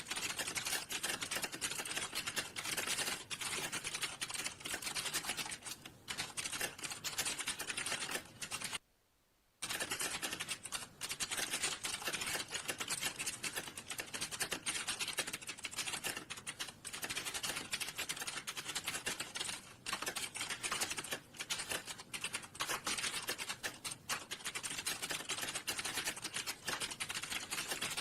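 Rapid, continuous typing on a computer keyboard, the keystrokes clicking densely one after another. The sound drops out completely for under a second about nine seconds in, then the typing resumes.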